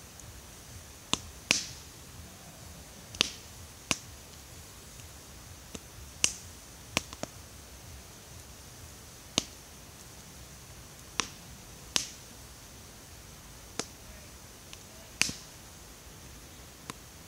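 Wood fire in a steel fire ring crackling: sharp, irregular pops come roughly every second, some singly and some in quick pairs, over a faint steady high hiss.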